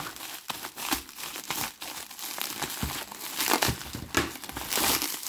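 Bubble wrap crinkling and crackling irregularly as hands grip, pull and cut at it to free the packaged lamp.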